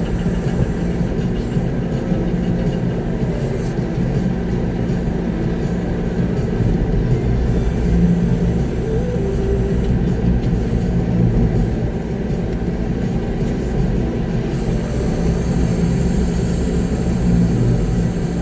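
Concrete mixer truck's diesel engine running, heard from inside the cab as a steady low rumble.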